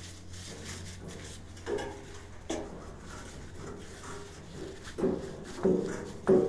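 Hands working on the brass water valve of a gas water heater: rubbing and about five short knocks and scrapes of metal fittings being handled, the loudest near the end.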